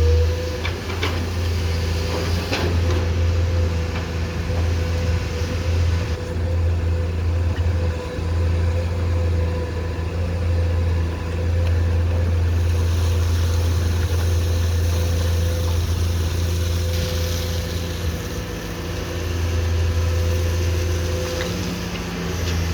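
Komatsu PC210-10M0 hydraulic excavator's diesel engine running steadily, a continuous low drone with a steady higher tone above it. A few sharp knocks come near the start.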